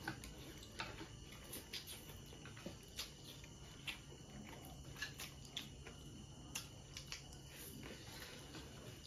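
Spicy instant noodles being slurped up and chewed with chopsticks, heard as faint, irregular short slurps and wet mouth clicks.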